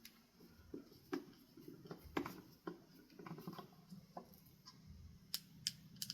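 Irregular light clicks and taps of ceiling fan blades, metal blade irons and screws being handled and fitted together by hand, about eight small knocks in all.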